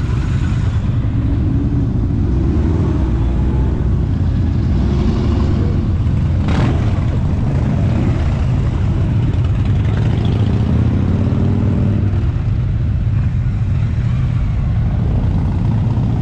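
Motorcycle engines running as a group of bikes rides past, a heavy low drone with engine notes rising and falling as riders open and close the throttle. A single sharp click about six and a half seconds in.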